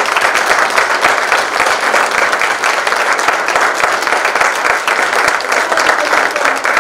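An audience of seated guests applauding: many hands clapping in a steady, dense patter that eases slightly near the end.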